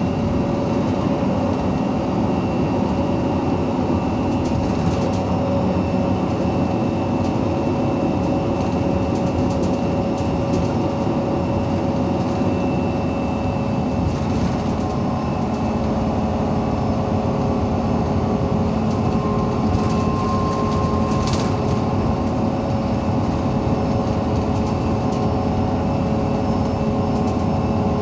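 Iveco Cursor 8 six-cylinder diesel engine of an Irisbus Citelis 18 articulated bus running with a steady, even drone at constant revs, with no revving or gear change.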